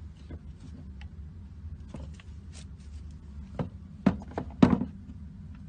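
Plastic doll toys being handled: a handful of light clicks and knocks in the second half, the loudest two about half a second apart, over a steady low hum.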